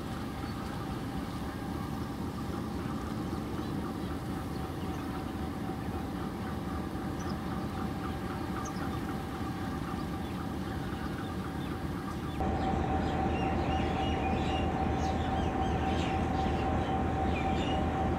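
Diesel locomotives idling: a steady engine rumble with a constant high whine, stepping up louder about twelve seconds in.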